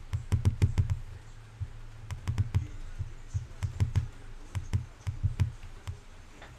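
Typing on a computer keyboard: irregular runs of sharp key clicks, each with a dull thump, broken by short pauses.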